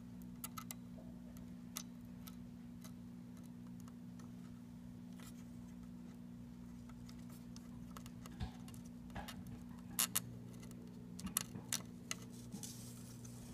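Sparse small clicks and taps of a replacement gauge stepper motor being handled and fitted into an instrument cluster circuit board, coming more often in the last few seconds, over a steady low hum.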